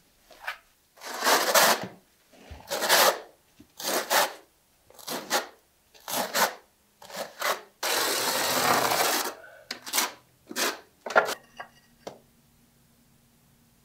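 Steel notched trowel scraping and combing thinset mortar across the floor in about ten strokes, one longer stroke near the middle. The scraping stops about three-quarters of the way through.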